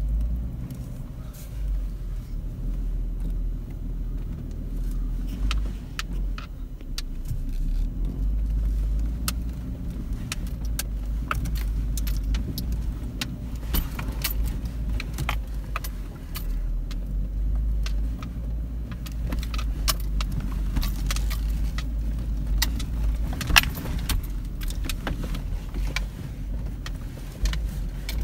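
Jeep driving on a rough trail: a steady low rumble from the engine and tyres, with frequent irregular rattles and clicks.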